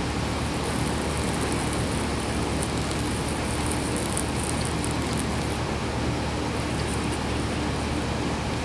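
Steady outdoor background noise, a low rumble with an even hiss, with faint irregular high ticks.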